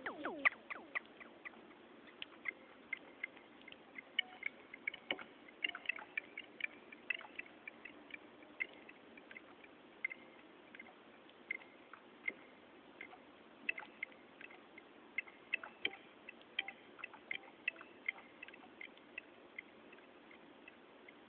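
Sparse, irregular short high blips and clicks, a few a second, from a keyboard synthesizer played through a Korg Kaoss Pad effects unit, over a faint steady hum.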